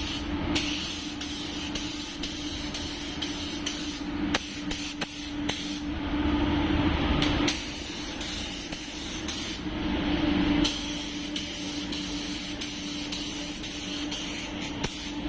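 Compressed-air spray gun hissing as it lays the white ground coat of a pearl-white paint at about 1.5 bar, getting louder in two stretches about six and ten seconds in. A steady low hum runs underneath.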